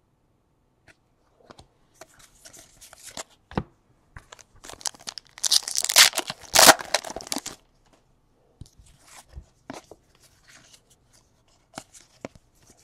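A trading card pack wrapper being torn open and crinkled, with scattered handling clicks and rustles; the loudest tear comes about halfway through.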